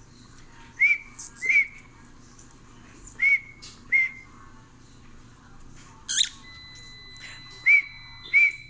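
Cockatiel whistling short, clear notes in pairs, each note with a quick upward flick, with a sharp chirp about six seconds in.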